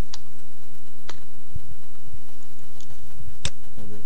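A few separate computer clicks, keyboard keys and a mouse button, with the sharpest one about three and a half seconds in, over a steady low electrical hum.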